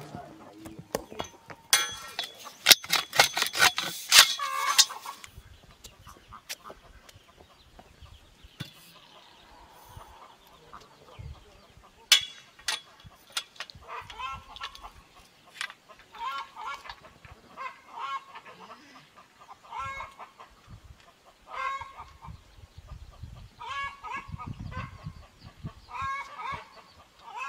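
Chickens clucking in short calls, about one a second through the second half. About two seconds in there is a louder burst of rapid clattering lasting a few seconds.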